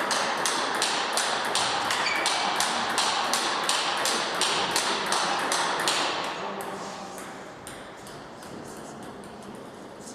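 Table tennis rally: the ball clicks off the bats and table in a steady back-and-forth of about three hits a second over a steady hiss. About six seconds in, the rally ends, the hiss drops away, and only fainter, scattered clicks remain.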